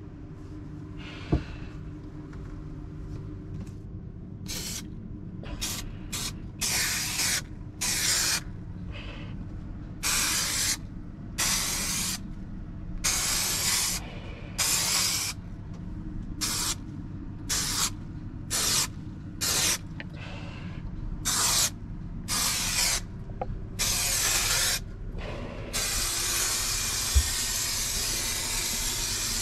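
Trade Tack spray adhesive hissing out in a long run of short bursts, around twenty of them, then one continuous spray near the end.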